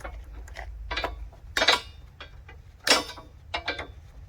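Metal clanks and rattles from steel sawmill parts and their mounting bolts being handled and worked loose from a pallet: several sharp, irregular knocks, the loudest two near the middle.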